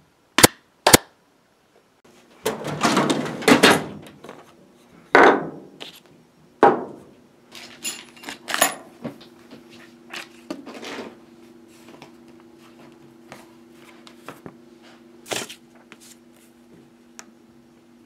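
Two sharp hand claps in the first second. After them come rustling and knocks as paper and a plastic bag are handled on a wooden table, over a faint steady hum.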